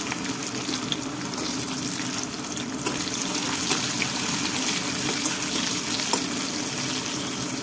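Sliced onions sizzling steadily in hot oil in an iron kadhai, with a metal spatula clicking and scraping against the pan now and then as they are stirred.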